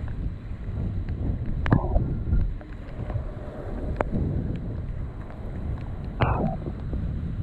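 Fast-flowing high-water river rushing around a whitewater kayak, with heavy wind buffeting the microphone. A few sharp paddle splashes stand out, about two, four and six seconds in.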